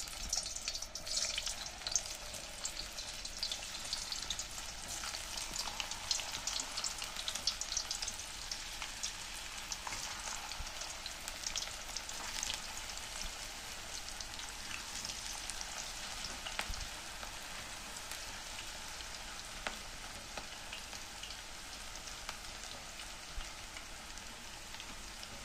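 Spice-coated potato peels deep-frying in hot oil: a steady sizzle full of small crackling pops, a little livelier in the first several seconds as the peels go in.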